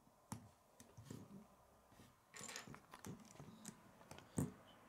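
Plastic K'nex pieces being handled and fitted together: light, scattered clicks and rattles, with one louder click about four seconds in.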